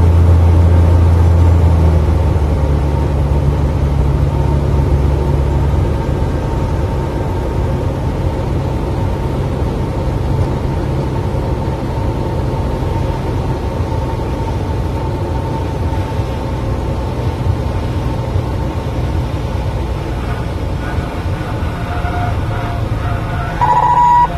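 Cessna 182RG's engine and propeller drone heard inside the cockpit on final approach. The engine note drops twice in the first six seconds as power is reduced. Near the end, as the plane flares over the runway, a steady warning tone starts: the stall warning horn in the landing flare.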